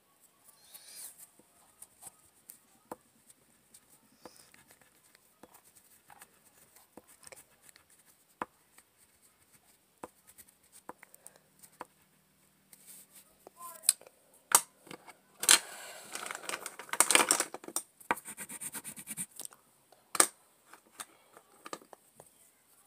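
Colouring by hand on paper: scattered light scratches and taps, then a few seconds of fast, dense scribbling strokes from about fifteen seconds in, the loudest part, followed by a sharp tick.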